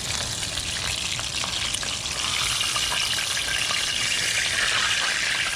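A whole mangrove snapper frying in hot oil: a steady sizzle with constant fine crackling.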